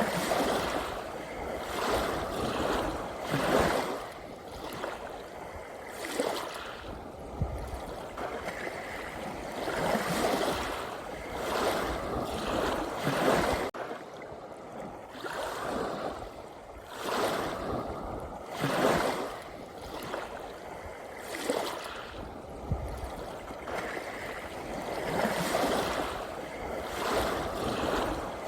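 Ocean waves breaking and washing in, surging every two to four seconds.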